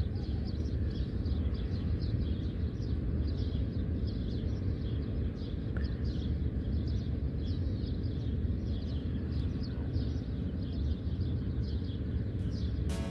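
Small birds chirping in quick, repeated high notes over a steady low outdoor rumble.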